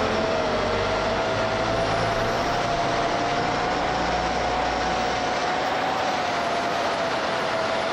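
DJI FPV drone's motors and three-blade Gemfan Hurricane 5536 props in flight: a steady whine that wavers slightly in pitch over a rush of air noise.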